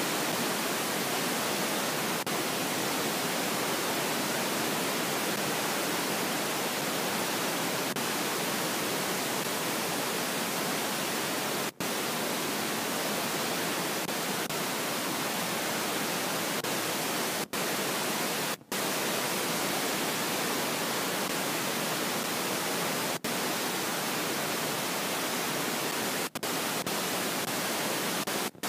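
Steady static hiss filling the whole track, with several brief dropouts to silence.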